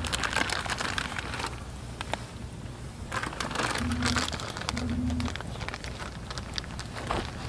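Campfire crackling with sharp pops, while sausages are laid on a wire grill rack over it, with two bursts of crinkling handling noise and a few short low hums.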